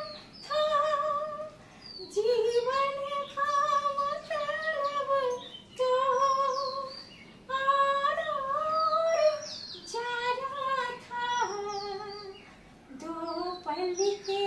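A woman singing unaccompanied in a high voice: long held notes with a wavering vibrato, in phrases of one to two seconds with short breaths between them.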